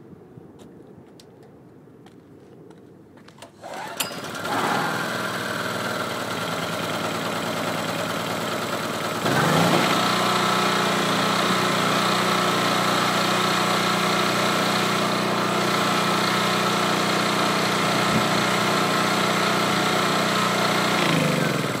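Chicago Electric 7 HP portable generator's single-cylinder gasoline engine starting about four seconds in, running, then louder from about nine seconds and running steadily. Near the end it winds down as it is switched off.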